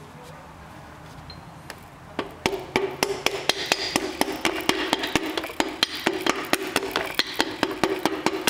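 Rapid light tapping, about six taps a second, with a ringing tone under the taps, starting about two seconds in: a forged piston being tapped down through a steel ring compressor into a BMW engine block's cylinder bore with the end of a hammer handle.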